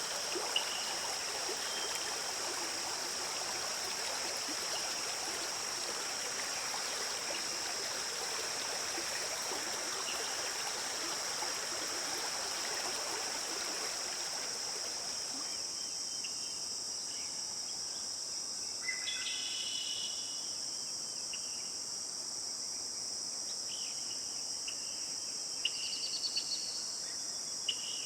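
Flowing stream over a steady high-pitched insect chorus; the stream fades out about halfway, leaving the insects and a few brief bird chirps.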